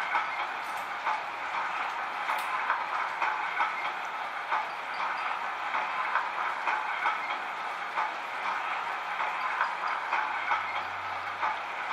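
Kato HO-scale EMD SD40-2 model locomotive running along the track: a steady rolling noise with frequent light clicks.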